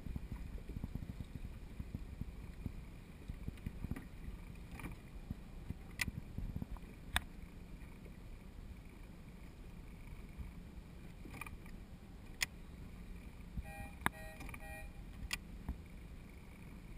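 Steady low wind and water noise on a GoPro's microphone, low on the water, broken by a few sharp knocks or clicks. About two-thirds through comes a brief run of short beeps.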